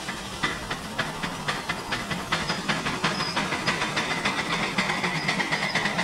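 5-inch gauge Manor class model steam locomotive working under way, its exhaust giving a loud, sharp beat several times a second that quickens slightly as it gets going. The loud exhaust comes from a specially made blast pipe, with the engine only lightly loaded.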